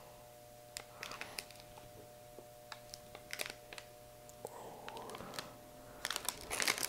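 Plastic snack-bar wrapper crinkling in the hands: scattered light crackles, then denser crinkling near the end, over a faint steady hum.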